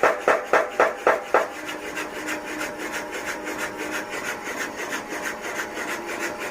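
Blacksmith's mechanical power hammer working at speed: about four heavy blows a second for the first second and a half, then lighter, quicker strokes over a steady motor hum.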